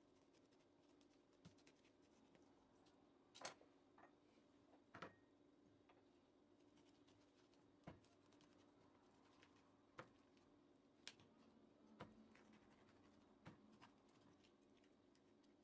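Near silence with a faint steady hum, broken by about ten faint clicks and light taps at irregular intervals, the strongest about three and a half seconds in.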